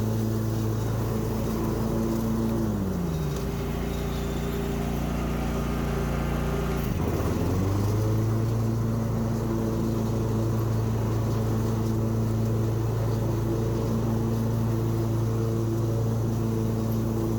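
Husqvarna zero-turn mower's engine running steadily while mowing. About two and a half seconds in its speed falls and stays low, sags further around seven seconds, then climbs back to its steady running speed.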